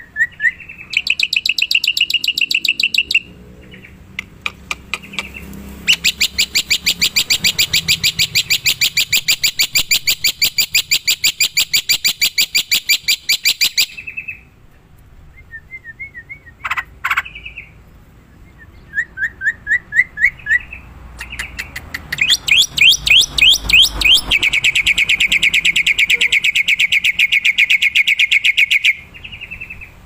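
Black-winged myna singing loudly in three long runs of fast, evenly repeated high notes, broken by short pauses and a few shorter calls.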